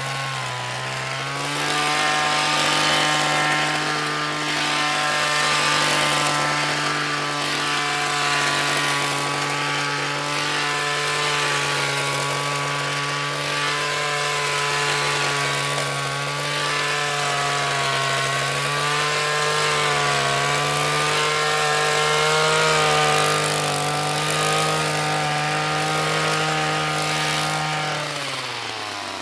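Hedge trimmer motor running at a steady high speed, its pitch wavering a little. Its pitch dips briefly about a second in, and near the end it winds down as the trimmer slows.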